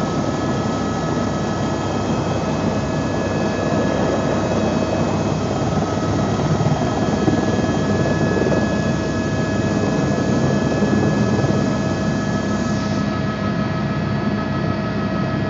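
Helicopter engine and rotor running steadily, heard from inside the cabin: a loud, constant rumble with a steady high whine over it.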